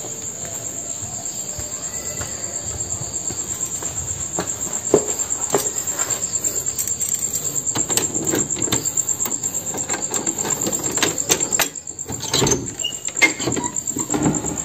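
Crickets chirping in a steady, fast-pulsing high trill, with scattered soft knocks and clicks over it.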